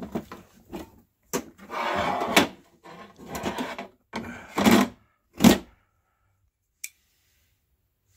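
Metal GE oven door hinge being handled and worked into place: a series of clicks and knocks with a short scrape about two seconds in, ending with a sharp knock about five and a half seconds in, then a single faint click.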